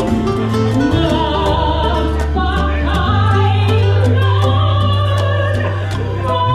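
Background music: a song with a sung melody over sustained bass notes and a steady beat.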